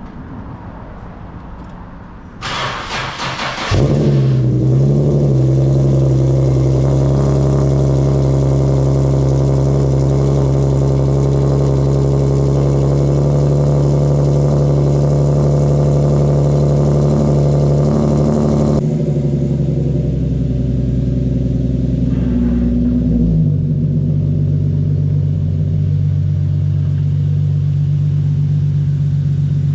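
Infiniti G37's V6 engine cranked over by the starter for about a second, then catching and running at a steady fast idle. Some twenty seconds in, the idle steps down to a lower, steady speed.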